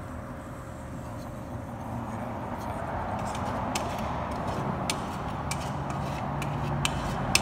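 Wire whisk tapping and scraping against a stainless steel mixing bowl as thick cornbread batter is scraped out: a run of sharp, irregular metallic clicks starting a couple of seconds in, over a steady low background hum.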